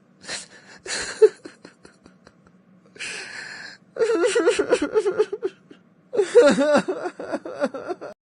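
A person crying: short sniffs and breaths, a hissing intake of breath about three seconds in, then two stretches of wavering, pulsing sobs that cut off suddenly near the end.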